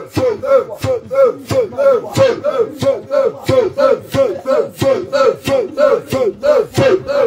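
Voices rhythmically chanting one short shouted syllable over and over, about three times a second, each falling in pitch.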